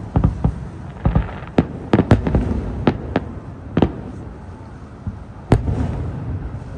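Aerial fireworks shells bursting, an irregular run of sharp booms with rolling echoes. After a short lull, the loudest single bang comes about five and a half seconds in.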